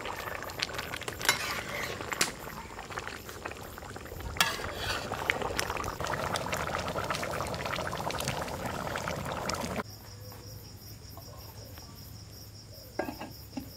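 Fish-head and banana-stem curry boiling in a pot, a bubbling hiss with occasional clinks of a spoon against the pot. About ten seconds in it cuts off abruptly to a quieter background with a steady high-pitched whine and a few clicks.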